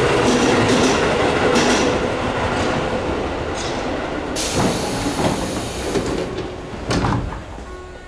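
Tobu 9000-series armature-chopper electric train coming in and slowing to a stop, its running noise and faint steady tone fading. About four seconds in there is a sudden hiss of compressed air, followed by several knocks and clunks.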